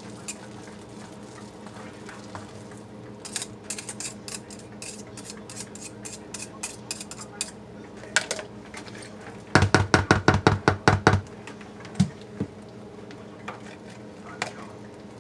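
Metal head of a stick blender clicking and scraping in a plastic tub of crumbly hot-process soap. A little past the middle comes a quick run of about a dozen sharp knocks: the blender is rapped against the tub to shake off soap. A single knock follows.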